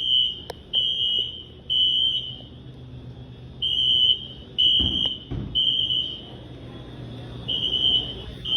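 Building fire alarm sounding the temporal-three evacuation pattern: groups of three high-pitched beeps, each about two-thirds of a second long, with a pause of over a second between groups. A couple of dull thumps come about five seconds in.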